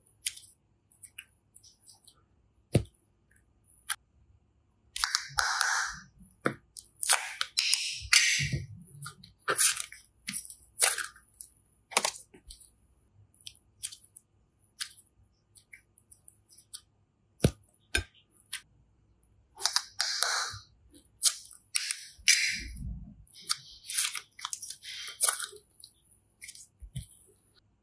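Hands working sticky slime: wet crackles and sharp clicks, in two busy runs with scattered single clicks between them.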